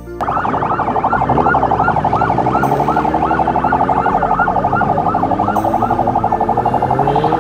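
Vehicle sirens of a motorcade: a loud, fast-pulsing siren tone with repeated short pitch sweeps above it, and a second siren's tone rising in pitch toward the end. The sirens cut in just after the start.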